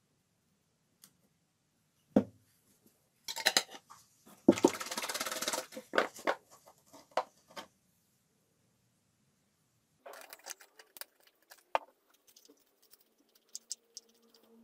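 Small handling sounds: a spoon scraping and tapping as sawdust is scooped out of a glass jar into a small plastic cup, then light clicks and rattles as glue is added and the sawdust-and-glue filler is stirred in the cup. The loudest part is a short stretch of dense scraping about four and a half seconds in.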